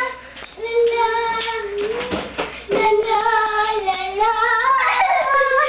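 A young child singing, holding long notes in a few phrases with short breaks between them.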